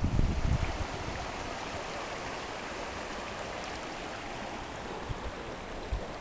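River rapids: a steady rush of water. Wind buffets the microphone with a low rumble for the first second.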